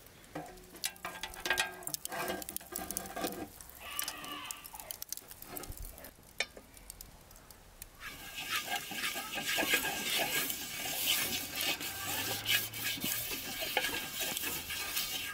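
A lump of fat rubbed over a hot steel saj pan above charcoal, sizzling and crackling as it greases the pan. The sizzling starts about halfway through, after scattered quieter clicks.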